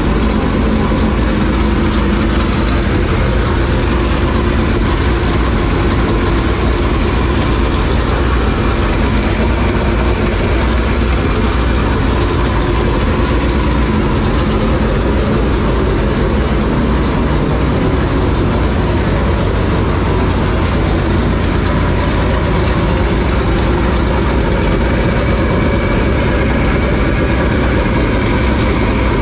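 Jay Dickens racing V8 in a dirt late model race car, carbureted, idling steadily.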